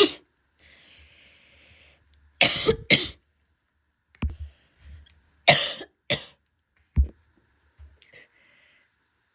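A woman's harsh, barking cough: a breath drawn in, then a pair of coughs about two and a half seconds in and another pair about five and a half seconds in, with a few shorter, sharper coughs between and after.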